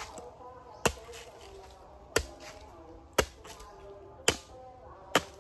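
Machete chopping into the husk of a fresh green coconut: five sharp strikes, about one a second.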